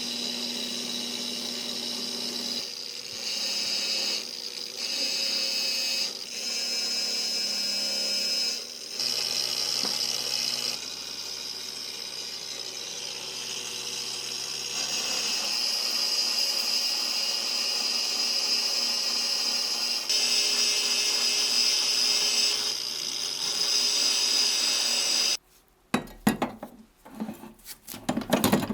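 Small high-speed power tool whining steadily on metal, stopping briefly a few times and starting again. It cuts off about 25 seconds in, followed by a few light metal clinks of parts being handled.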